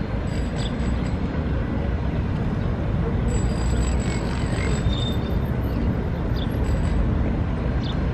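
Steady low rumbling outdoor background noise, with a few faint short high chirps here and there.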